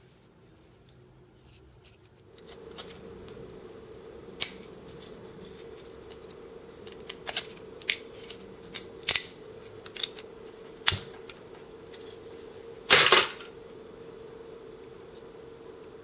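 Pliers gripping and breaking apart the plastic parts of a smoke detector's ionization chamber: scattered sharp clicks and snaps, with the loudest, a short crunch, about thirteen seconds in. A steady hum runs underneath from about two seconds in.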